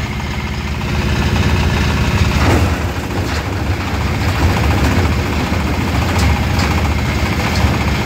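13 hp diesel engine running steadily, powering a palm fruit stripping (brondol) machine, with a few light knocks over the steady rumble.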